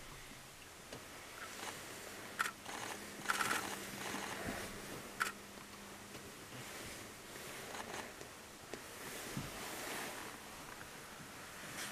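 Greater sage-grouse male's strut display: a few short swishes and pops from his wings and inflated air sacs, loudest in the first half, over a faint steady hiss of wind.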